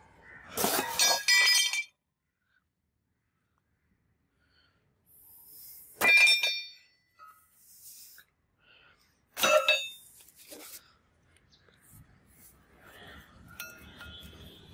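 Large rusty steel drill bits clinking and knocking against one another as they are handled: three sharp metallic clanks, a few seconds apart, each ringing briefly. Quieter rustling handling sounds fill the gaps.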